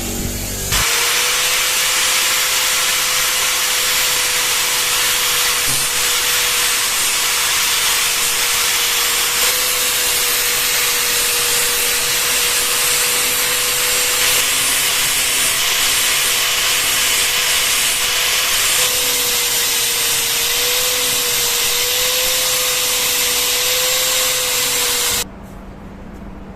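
An electric abrasive power tool, a sander or grinder, runs steadily under load with a loud hissing grind over a constant motor whine. It starts about a second in and cuts off shortly before the end.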